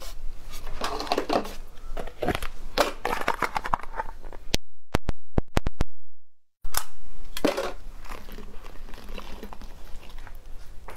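Glass jars of crayfish tails in sauce being handled, opened and tipped out onto a ceramic plate: knocks and clicks of glass and a metal pull-ring lid, and the wet tails sliding and dropping onto the pile. About halfway through, a short string of sharp clicks breaks off into a moment of dead silence.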